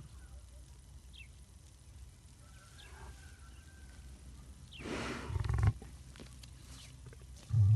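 A lion sneezing once about five seconds in: one sudden, loud, breathy blast that cuts off sharply. Near the end a lion starts a deep, low-pitched roaring call.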